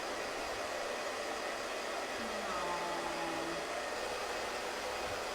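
Small handheld dryer blowing a steady airy hiss, drying a wet kitten's fur.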